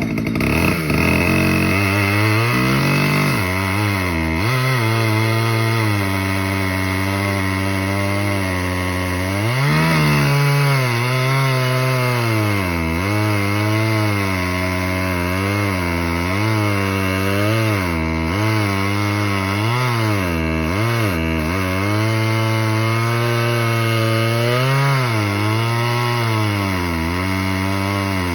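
Small Stihl 011 two-stroke chainsaw running while bucking firewood logs. Its engine pitch dips and recovers again and again, roughly once a second, as the chain bites into the wood and frees up.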